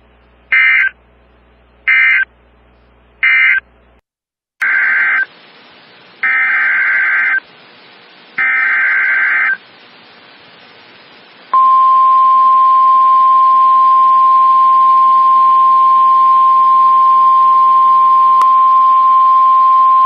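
NOAA Weather Radio emergency alert signalling. Three short screeching SAME digital data bursts (the end-of-message code) come first. After a cut, three longer SAME header bursts follow, and about eleven seconds in the steady single-pitch 1050 Hz weather-radio warning alarm tone starts and holds for about nine seconds.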